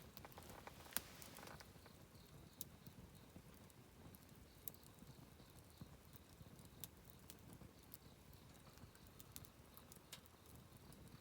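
Wood campfire crackling softly, with scattered sharp snaps and pops over a low steady rumble of the burning. The loudest snap comes about a second in.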